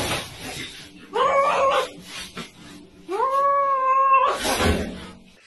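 A cat yowling in drawn-out calls, the longest about a second and held on one pitch, followed by a short noisy burst.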